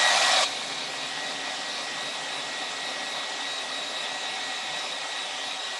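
Hand-held hair dryer blowing steadily with a faint whine. It is loudest for the first half second, then drops to a lower, even level.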